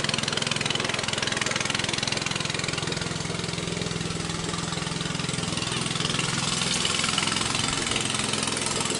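A boat's outboard engine running steadily at speed, a low even drone over a hiss.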